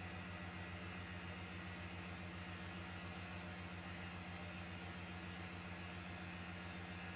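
Tormach CNC mill spindle driving a shear hog face mill across metal bar stock under flood coolant: a steady whirring hum with a fast, even pulsing underneath and a faint high whine.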